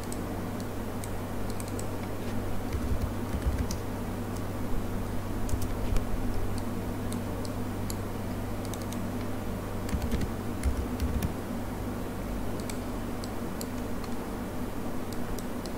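Computer keyboard being typed on in short, irregular runs of key clicks, over a steady low electrical hum.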